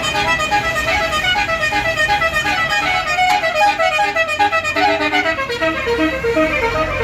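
Basuri telolet horn on a tour bus playing a fast melody of short, stepped horn notes, which shifts to lower notes near the end, with a low rumble underneath.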